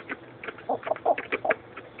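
Small flock of chickens: brief low clucks mixed with a quick string of short, sharp clicks, about a dozen in two seconds.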